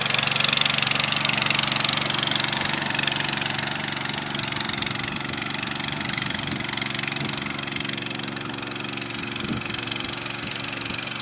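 Walk-behind mini power tiller's engine running steadily as its rotary tines work through flooded paddy mud. It is loudest in the first few seconds and grows gradually fainter as the machine moves away.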